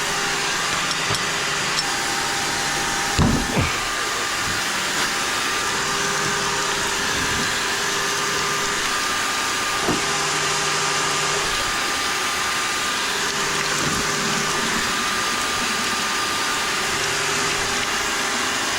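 A small electric motor running steadily with a whirring hiss. A few knocks come through it, the loudest about three seconds in and lighter ones near ten and fourteen seconds.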